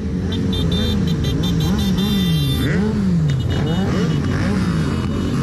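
Many motorcycle engines running together in a moving convoy, their pitch rising and falling again and again as riders open and close the throttle, over a low rumble.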